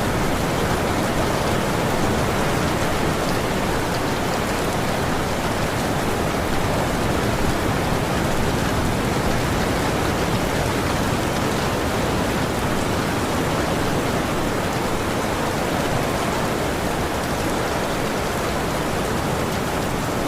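Steady rainstorm ambience: a continuous, even rushing hiss of rain that holds the same level throughout, with no distinct thunderclaps.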